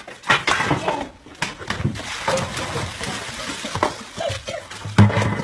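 Commotion: water splashing from a knocked-over plastic bucket and scuffling on wet concrete, with brief shouts and a heavy thump about five seconds in.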